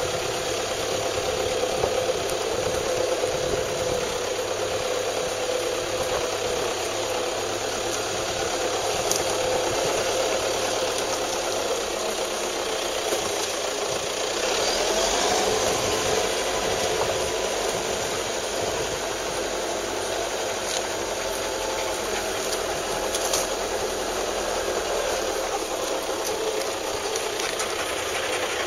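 Toyota Hilux 3.0 D-4D four-cylinder turbodiesel running steadily at low speed, rising briefly in pitch about halfway through.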